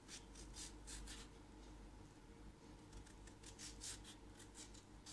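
A kitchen knife slicing through a courgette held in the hand: a series of short, faint, crisp cutting strokes, a few near the start and a quicker run from about two and a half seconds in.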